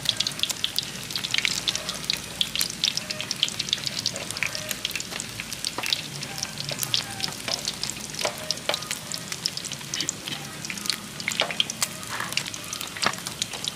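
Batter-coated cá linh (small mud carp) frying in hot oil, a steady sizzle with dense, constant crackling pops.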